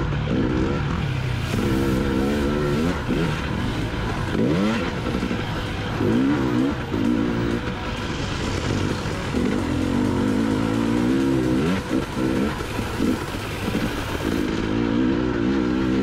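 Two-stroke enduro motorcycle engine revving up and falling back again and again as it is ridden along a dirt track.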